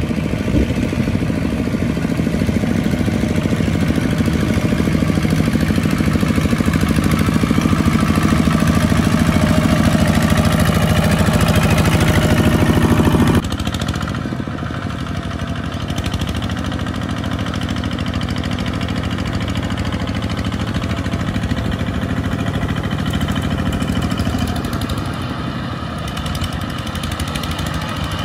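Single-cylinder diesel engines of Kubota two-wheel walking tractors running steadily while towing loaded trailers through mud. The pitch rises a little, then about thirteen seconds in the sound changes abruptly to a slightly quieter engine.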